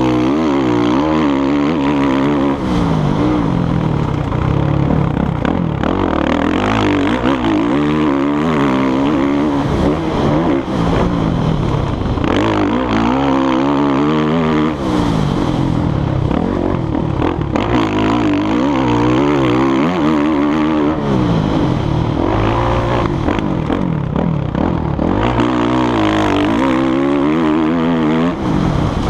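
Motocross dirt bike engine under hard throttle, its revs climbing and dropping over and over as the rider accelerates out of turns and shifts, heard from a helmet-mounted camera.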